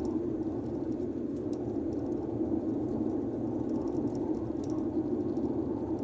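Steady cabin noise of a Hyundai Getz hatchback driving at road speed: an even low rumble of tyres on the road and engine.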